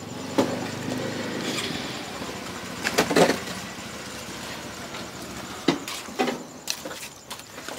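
A motor running steadily in the background, with several short, sharp knocks.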